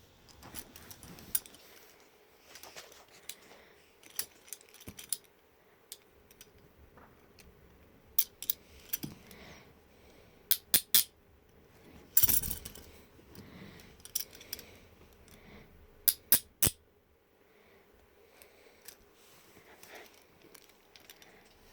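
Steel handcuffs being handled: scattered sharp metal clinks and clicks of the cuffs and chain, in irregular clusters, the loudest about halfway through.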